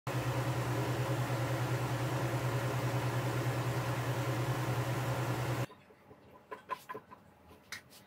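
Electric fan running on a homemade foam-box air cooler: a steady motor hum with rushing air that cuts off abruptly about two thirds of the way through, followed by quiet with a few faint clicks.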